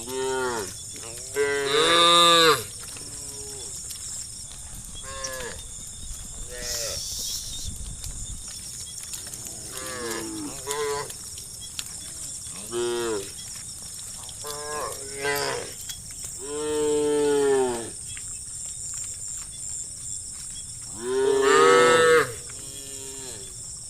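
Cattle mooing, many calls overlapping from several animals. Three long, loud moos come about two seconds in, about seventeen seconds in and near the end, with shorter, fainter calls between them.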